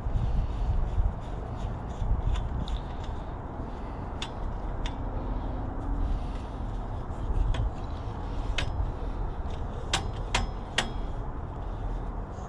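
Metal tool work on a bicycle crank: a crank puller and wrench scraping and clinking against the crank arm, with scattered sharp clicks, a quick cluster of three about ten seconds in. A low steady rumble sits underneath.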